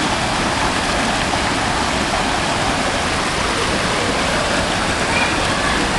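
Steady rushing of river water pouring over a rocky cascade.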